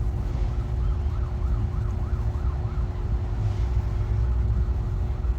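A fast wavering wail like a siren, rising and falling several times a second and fading after about three and a half seconds, over a steady low rumble and a constant hum.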